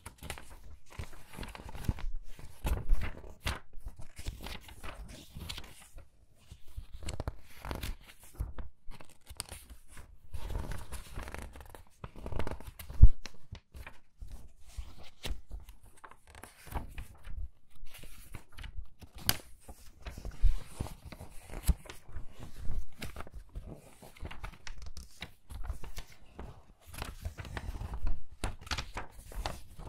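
Crinkly magazine pages turned quickly one after another, each turn a short crackle and flap of paper, with the sharpest snap about 13 seconds in.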